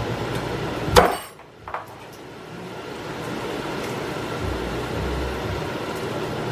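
Garlic cloves being whacked: one sharp, loud whack about a second in, then a lighter knock, over onions and mushrooms sizzling steadily in butter and oil in the pan.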